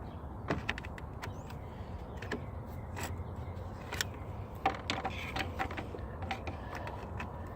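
Irregular metallic clicks and knocks of hand tools (pliers) working on hose clamps and fittings around a car's power steering pump, over a steady low hum.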